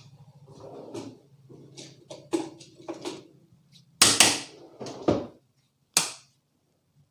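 A barber's hands slapping during a head massage: a run of sharp slaps, with the loudest three coming about a second apart in the second half.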